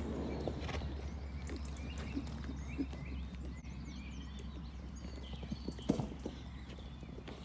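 Hooves of a horse cantering on the lunge over soft, muddy ground: a loose run of dull thuds, with one sharper, louder hoof strike about six seconds in.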